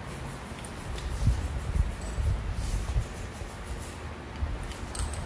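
Handling noises from fitting a timing chain and its chain guide onto a Honda R18 engine block: irregular soft low knocks, the loudest a little over a second in, with a few faint small clicks.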